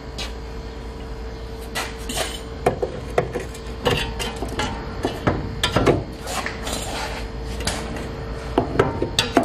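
Irregular metal clanks and knocks as a new lower control arm is worked by hand into its mounts on a Ford Freestyle's front subframe, over a steady faint hum.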